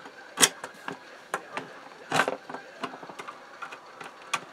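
Small clicks and taps of a screwdriver and screws being handled against the plastic case of an oscilloscope, with two louder knocks about half a second and two seconds in and a quick run of small ticks near the end.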